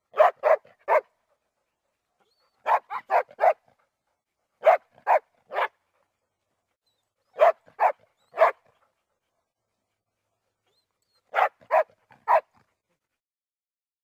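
Weimaraner barking in five short bursts of three or four quick barks each, with silent pauses of one to three seconds between bursts.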